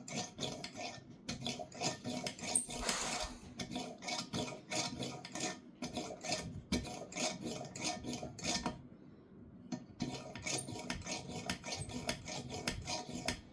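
Rapid rhythmic rubbing or scraping strokes, several a second, with a short pause about nine seconds in before they start again.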